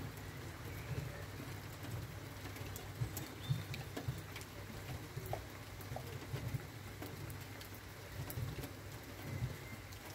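Steady rain falling, with scattered individual drops pattering close by.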